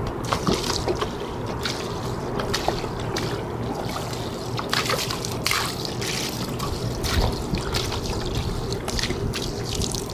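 Water poured from a plastic jug, trickling and splashing onto asphalt as it rinses a soapy patch.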